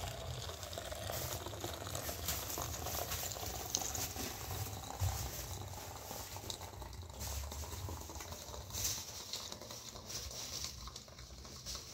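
Hot water pouring in a thin stream from a metal kettle into a small metal teapot, a steady trickling splash.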